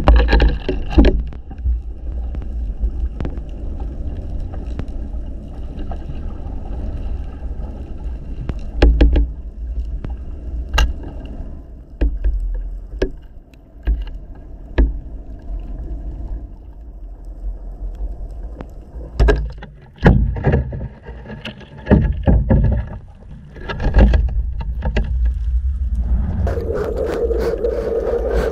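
Muffled underwater rumble from an action camera in its housing on a fishing line with a descending device, with scattered clicks and knocks from the rig against the housing. Near the end a steadier sound with a hum comes in.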